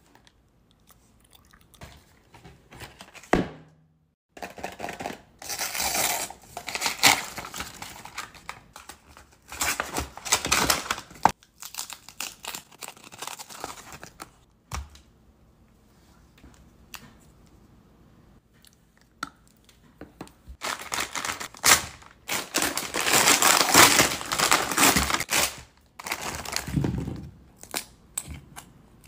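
Plastic and foil candy wrappers being crinkled and torn open by hand, in several loud bursts, with a few sharp clicks in between.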